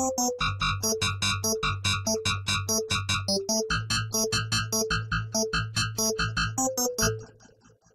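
Korg DS-8 four-operator FM synthesizer playing a fast run of short, bright, percussive notes, about five or six a second, over a sustained bass line that shifts pitch every second or so. The playing stops a little after seven seconds in, and the last notes die away with a short effects tail.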